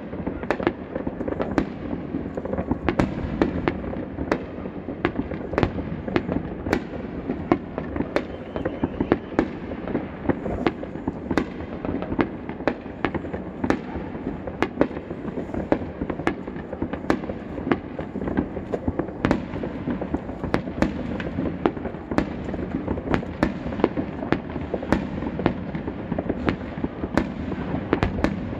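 Many aerial fireworks shells bursting over a city at once: a dense, unbroken run of bangs and cracks, a few every second, some sharp and close, the rest merging into a steady rumble.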